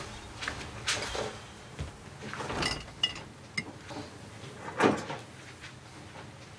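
Kitchen clatter: a handful of separate knocks and clinks as dishes and cupboards are handled at the counter, the loudest about three-quarters of the way through.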